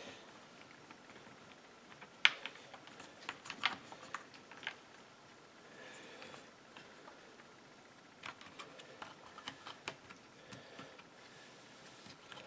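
Scattered light clicks and taps of hands and a tool on the plastic housing of a Husqvarna chainsaw as its recoil starter cover is worked loose.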